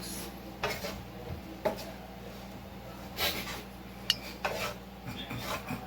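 A utensil scraping and stirring seasoned ground turkey in a pan, in a few separate strokes about a second apart, with a little water just added so the seasoning mixes in.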